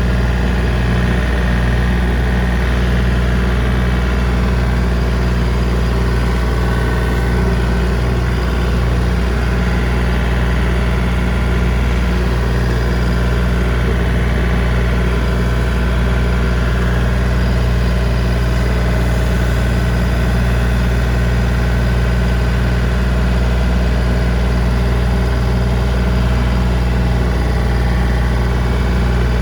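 John Deere 3025D compact tractor's three-cylinder diesel engine running loud and steady while driving a brush hog rotary cutter, in first gear low range.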